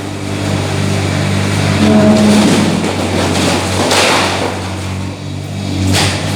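Excavator diesel engine running steadily, with a brief higher tone about two seconds in and two short bursts of rough noise around four and six seconds in.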